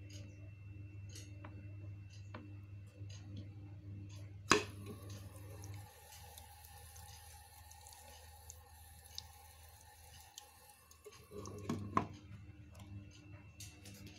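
Deerma ultrasonic humidifier running: a low steady hum with small scattered clicks and drip-like ticks. About four seconds in comes one sharp clack as the top is handled, then a quieter stretch of faint steady tones, and a cluster of handling knocks near the end.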